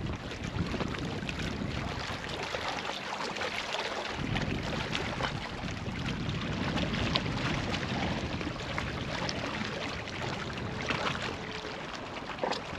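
Seawater washing and splashing among shoreline rocks, a steady rush with many small crackling splashes, mixed with wind on the microphone.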